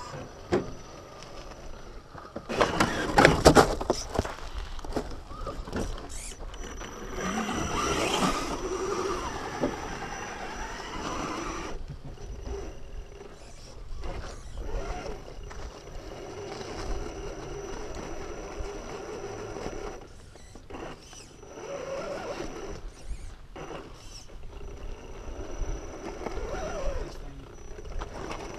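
Electric 1/10-scale RC rock crawler grinding slowly up a steep rock face, its motor and gears whining in short pushes as the tires scrabble on the rock. A loud burst of noise comes about three seconds in.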